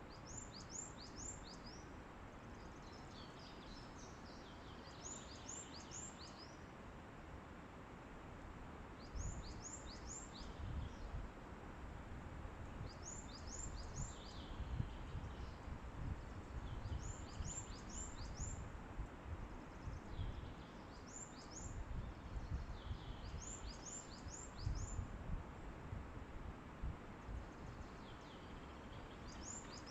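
A songbird repeats a short phrase of three or four quick, high, downward-sweeping notes about every four seconds, over steady forest wind noise. From about a third of the way in, wind gusts rumble against the microphone.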